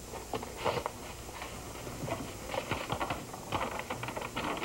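Stiff paper crackling and rustling as a rolled paper message is unrolled and opened, a string of short irregular crackles that grows busier in the second half.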